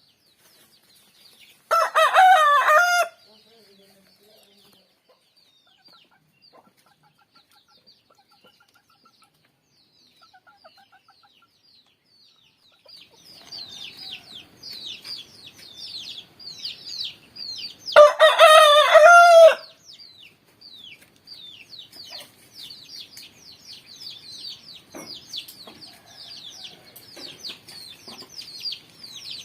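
Rooster crowing twice, one crow about two seconds in and a second, longer crow midway through. From about halfway on, a steady run of quick high chirps goes on underneath.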